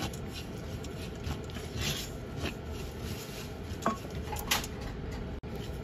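Plastic spatula stirring and scraping chopped dried shrimp around a dry frying pan. The shrimp are being toasted without oil until dry and fragrant. It is a steady scratchy rustle with a few sharper scrapes and taps against the pan.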